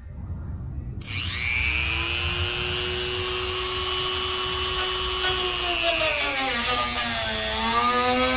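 Dremel rotary tool spinning up about a second in to a steady high whine. From about five seconds on the pitch sags and wavers as the bit bites into the edge of an aftermarket body-kit panel, trimming it to fit.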